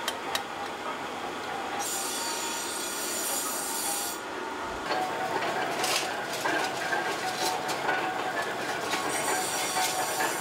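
Workshop machinery running steadily with a metallic squeal and a few sharp metal clinks. Twice a high hiss comes in for a couple of seconds.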